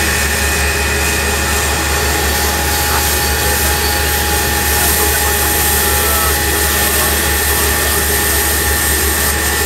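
Fire engine's pump running steadily as foam is sprayed from hose lines, a continuous engine drone with a steady hiss over it.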